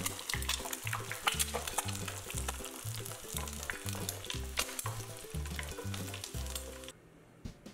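Egg frying in hot oil, crackling and spitting steadily over background music with a regular bass beat. The frying cuts off suddenly near the end.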